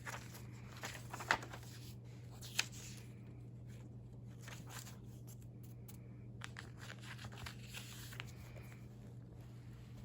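Paper rustling and crinkling as the pages and old newspaper clippings of a recipe binder are handled and turned, with two sharp clicks in the first few seconds, over a steady low hum.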